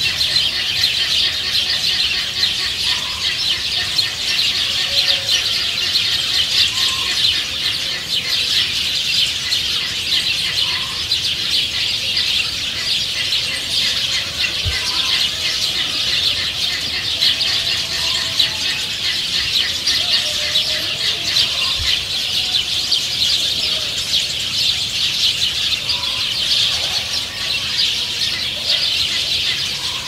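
Farmyard ambience: a continuous high-pitched chorus of chirping, with hens clucking now and then.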